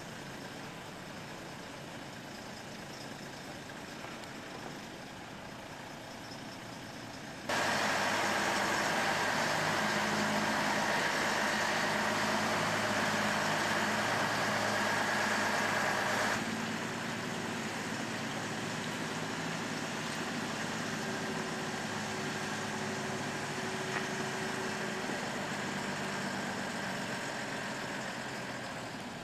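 DAF 95 heavy-haulage tractor unit's diesel engine running steadily while it manoeuvres a loaded low-loader trailer. From about seven seconds in to about sixteen it is much louder, with a hissing rush over the engine note, which starts and stops abruptly.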